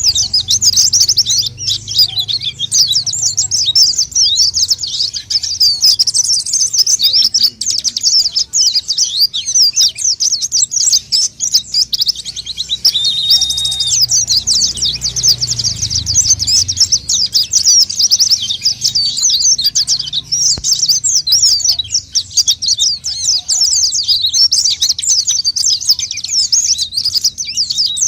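White-eye (pleci) song, played as a bird-lure call: a rapid, unbroken twittering of high chirps. About 13 seconds in, a short steady whistled note sounds under the twittering.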